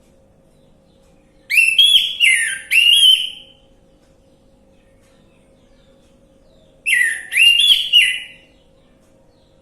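Orange-headed thrush singing: two short phrases of three or four quick rising whistled notes each, the second phrase coming about five seconds after the first.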